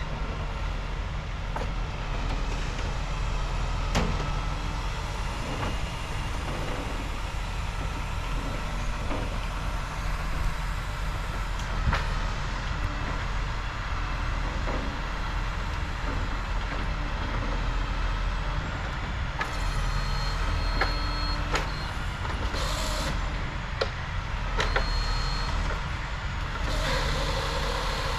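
Engine of a crane truck running steadily at a constant speed, with a few sharp knocks and brief high whines over it.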